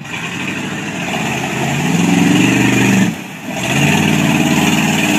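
Lifted GMC short school bus's engine revving under load as it pushes through deep mud and water; the revs drop briefly about three seconds in, then climb again.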